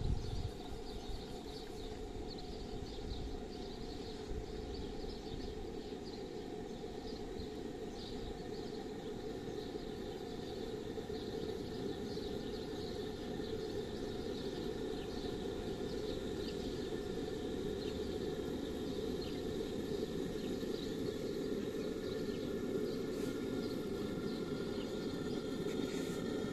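Model steam boat's engine running, a steady low noise that grows louder as the boat comes in close.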